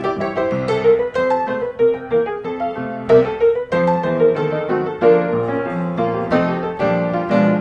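Background piano music: a steady run of single notes over quieter lower chords.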